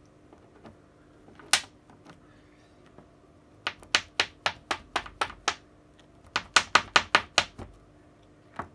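Sharp clacking from the carbon-fibre nylon fingers of a 3D-printed robot hand as their tendons are pulled by hand and the elastic snaps them back, during a check that the tendons run freely. One click, then two quick runs of clicks, a few a second, and a last one near the end.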